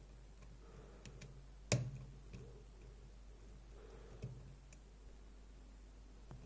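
Faint ticks and clicks of picking tools working the pins of a DOM iX6SR dimple lock, with one sharper click a little under two seconds in.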